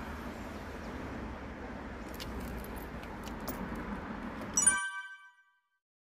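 Metal leash clips and rings clinking as the dogs move, over steady background noise, ending in one bright ringing metallic clink about four and a half seconds in. The sound then cuts off to silence.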